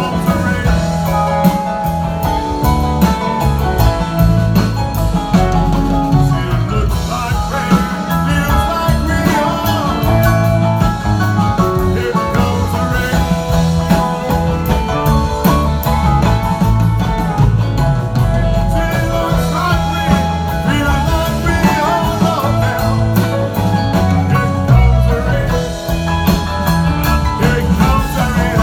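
Live rock band playing: electric guitars over bass guitar and a drum kit.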